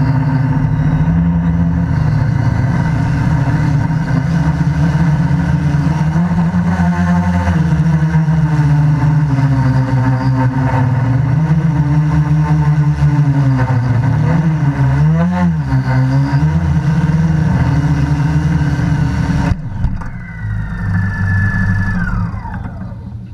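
QAV500 quadcopter's four brushless motors and propellers droning loud, heard from the camera mounted on its frame, the pitch dipping and rising with throttle changes. Near the end it sets down on the grass and the level drops suddenly, then the motors wind down with a steeply falling whine.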